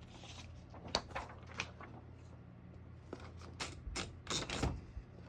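Scattered mechanical clicks and clunks as the parts of a 1972 Brother Prestige 688 portable typewriter are moved by hand. There are a few single clicks early, then a quicker cluster in the second half, over a faint low hum.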